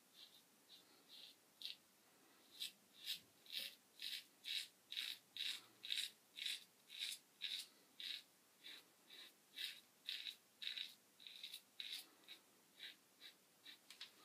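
Merkur 37C slant safety razor with a Treet carbon steel blade scraping through lathered stubble in short, rasping strokes, about two a second, faint at first and then steadier.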